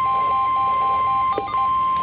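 NOAA Weather Radio warning alarm tone: a loud, steady single tone near 1 kHz, announcing that a new warning is about to be read. A rapid beeping of about seven beeps a second runs over it and stops shortly before the end, followed by a click.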